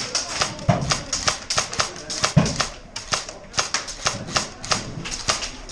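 Airsoft guns firing rapid, irregular single shots, several clicks a second. Two dull thumps come through, about a second in and just before the middle.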